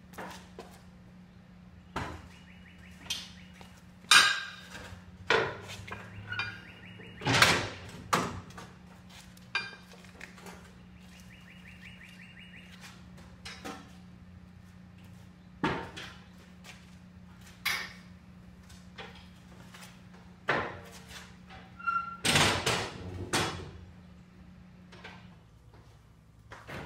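Aluminum car ramps being handled and set down on a concrete garage floor at a lift's runways: a series of separate metallic clanks and thunks, the loudest clustered about four seconds in, around seven seconds in and again near the end. A steady low hum runs underneath and stops shortly before the end.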